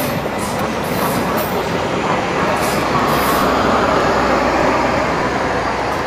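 Argo Dwipangga passenger train coaches rolling past close by: a steady rumble of wheels on rail that swells to its loudest a few seconds in, with light metallic ticks in the first half.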